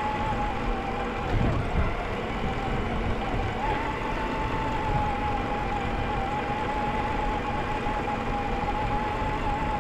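Traxxas TRX4 RC crawler's electric motor and gearbox whining steadily as it drives over a dirt trail, picked up by a camera strapped to the truck, over a constant low rumble from the bouncing chassis and tyres. The whine fades about a second in and comes back stronger about three and a half seconds in.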